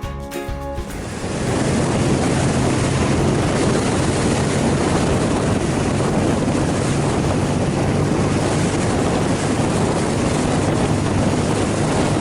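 Wind rushing over the microphone on a moving BMW flat-twin motorcycle, with the engine's steady drone underneath. It comes in about a second in, after music stops, and holds steady.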